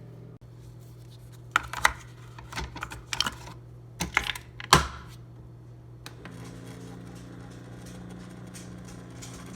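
A run of sharp clicks and knocks, then a steady hum with a few held tones from about six seconds in.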